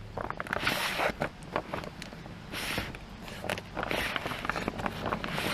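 Irregular rustling, scraping and short knocks in bursts, from hands and tools working at old carpet, padding and flooring.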